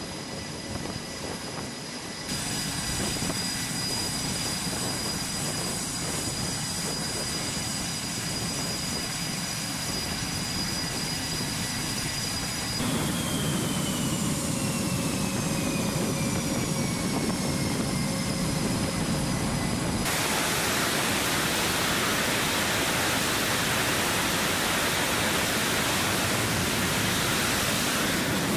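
F/A-18 Super Hornet jet engines running on a carrier flight deck, cut together in several segments. First a steady turbine whine with high tones, then a whine that falls in pitch, and from about twenty seconds in a louder, even rush of jet noise as a jet runs up for a catapult launch.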